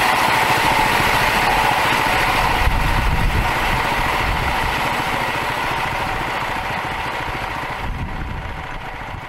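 Small gasoline engine on a homemade band saw sawmill, running steadily, with a high whine alongside its low firing beat. It gradually fades toward the end.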